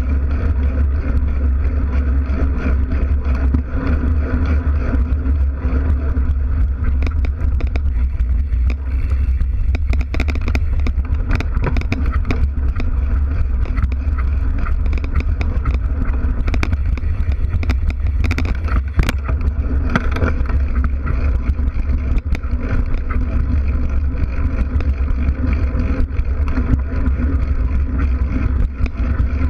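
Mountain bike riding with the camera's microphone by the rear wheel, giving a steady low rumble of tyre and air. Short clatters and knocks come through over the rough dirt stretch in the middle.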